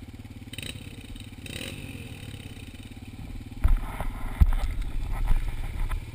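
Dirt bike engine idling steadily. About halfway through, loud irregular knocks and rumbling from the handlebar-mounted camera being grabbed and moved cover it.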